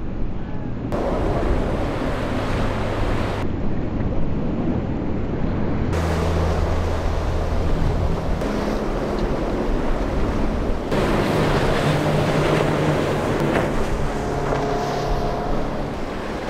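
Powerboats running through breaking surf: a steady engine hum under the rush of waves and hull spray, with wind on the microphone. The sound changes abruptly a few times as one boat's pass gives way to the next.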